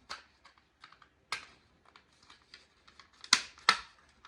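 Light plastic clicks and taps from handling a Family Gard FG888D smoke alarm with its battery just removed, with two louder sharp clicks near the end. The alarm itself gives no power-down chirp.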